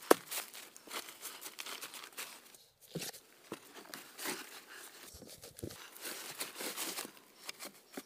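Dry fallen leaves rustling and crunching in irregular bursts, with one sharp knock at the very start as a log is set down on a rock.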